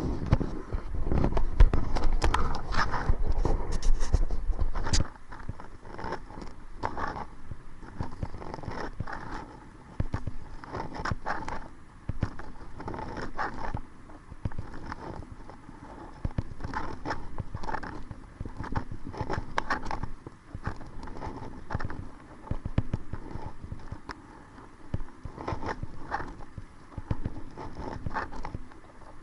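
Kayak paddle strokes: water splashing and dripping off the paddle blades in a steady rhythm, about one stroke every second and a half. Wind buffets the microphone with a low rumble for the first few seconds.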